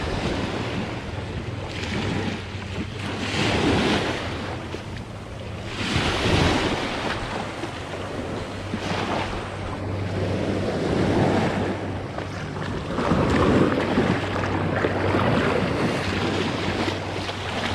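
Small waves washing up a sandy beach and drawing back, swelling and fading every few seconds, with wind buffeting the microphone.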